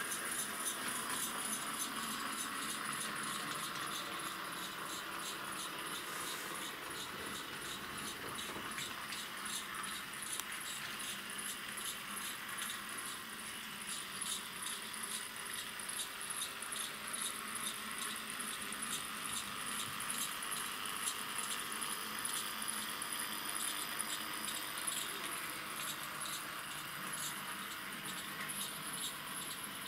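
H0-scale model tram, a Z2U motor car pulling a Z2BU trailer, running on layout track. Its small electric motor and metal wheels on the rails give a steady, rapid, fine rattling tick over a hiss.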